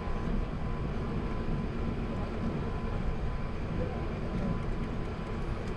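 Steady low cabin rumble inside an Airbus A380 on the ground after landing, its engines and air systems running at an even level, with a thin steady tone above.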